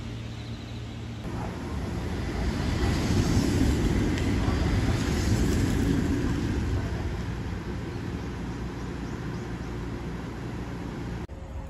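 Electric train (JR West 227 series) running at a station platform: a rumble of motors and wheels that swells a couple of seconds in and slowly eases off, then cuts off suddenly near the end.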